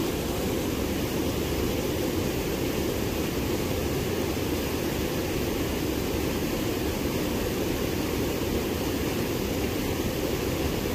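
Steady rushing of a stream waterfall close by: an even, unbroken wash of falling water, heaviest in the low range.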